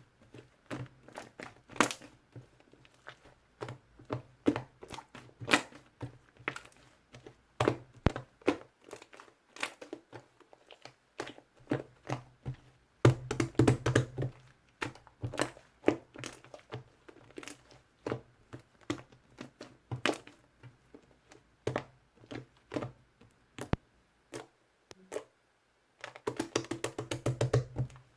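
Slime being squeezed, poked and folded by hand while bubble cleanser is worked into it, making irregular wet clicks and pops, with denser bursts of squishing about halfway through and near the end.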